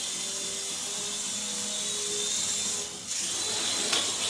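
Micro coaxial electric RC helicopter (Happy Cow Eidolon 777-575) in flight: its tiny electric motors and twin rotors whirring steadily. The sound drops off briefly about three seconds in, then picks back up.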